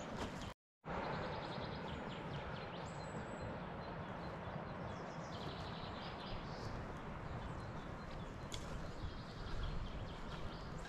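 Birds chirping in repeated short trills over a steady rushing outdoor background noise, broken by a brief dropout to silence just after the start.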